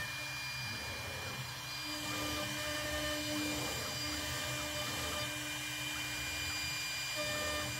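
CNC router spindle motor running with a steady high whine while its small bit engraves grid lines into the spoilboard. A lower tone from the machine's axis drive starts and stops several times as the head moves from line to line.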